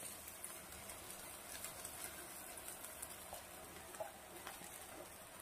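Faint patter of cooked rice being tipped into a wok of stir-fried vegetables, over a soft frying sizzle, with a few light ticks.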